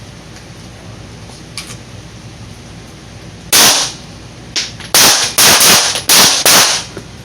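Pistol shots from several shooters on a firing line, two rounds each on command: a first shot about three and a half seconds in, then a quick, uneven string of about seven more.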